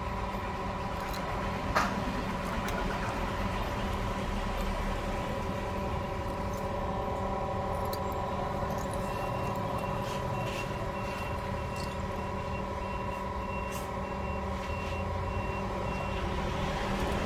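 Steady hum of an LCD separator machine's vacuum pump running, holding the screen down on its heated plate. A faint high beeping, about two beeps a second, runs from about nine seconds in until about sixteen.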